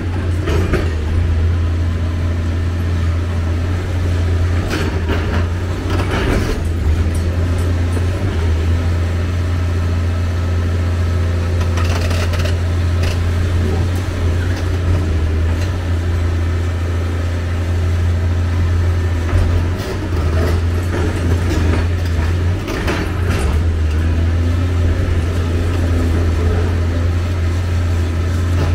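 Hyundai 290LC-9 crawler excavator's diesel engine running steadily with a deep drone while the machine works. Several sharp clatters and knocks sound over it.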